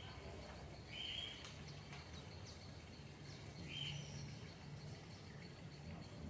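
A bird giving short calls, two of them about three seconds apart, over a faint steady high-pitched insect trill and low background hum.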